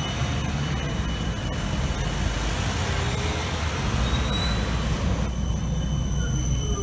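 Siemens Combino trams running on street track among road traffic: a steady rolling rumble and traffic noise. Near the end there is a falling whine as a tram passes close.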